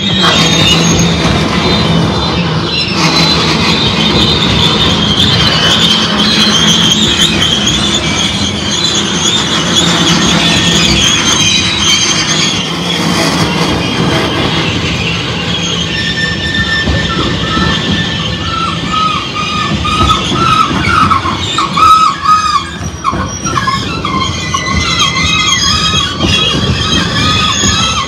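Freight train of tank cars rolling past close by, steel wheels on rail with a steady rumble and high-pitched wheel squeal on the curve. The squeal wavers throughout, and a second, lower wavering squeal joins past the halfway point.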